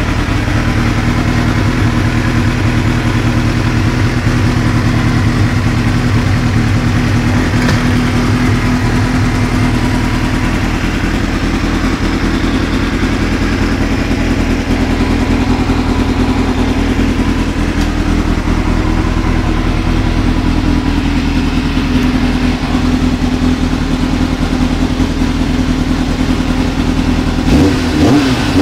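Kawasaki ZX750 R (ZX-7R) inline-four engine idling steadily, stationary in neutral. Near the end the throttle is blipped and the revs rise and fall.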